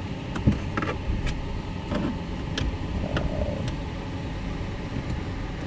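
A few small plastic clicks and rattles as a Tesla Model 3 door's wire-harness holder clip is squeezed at its two tabs and worked loose, over a steady low background rumble.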